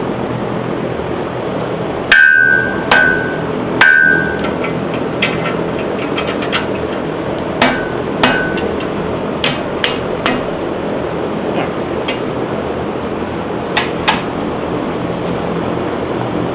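Metal tools striking metal parts: about a dozen irregular sharp clanks, the three loudest in the first few seconds each ringing briefly, over a steady background hum.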